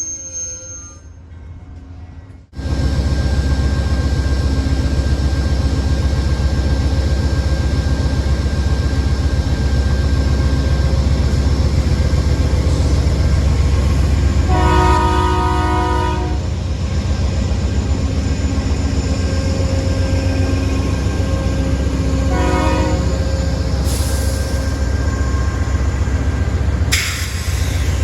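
A train running close by with a loud, steady low rumble that starts suddenly a couple of seconds in. Its horn sounds for about a second and a half midway, then gives a short blast about eight seconds later.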